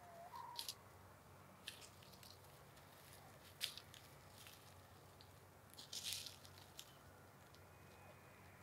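Quiet scene with wild turkeys close by: a few soft crunches and rustles as they peck and step in the grass, and a short soft turkey call about half a second in.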